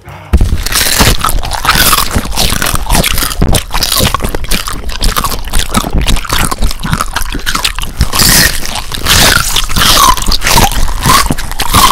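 Close-miked ASMR crunching and wet squishing as gooey, sauce-covered food is torn apart and eaten, a rapid, continuous crackle of crunches starting abruptly about a third of a second in.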